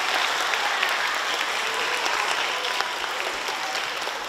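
Audience applauding, a dense steady clapping that eases off slightly toward the end.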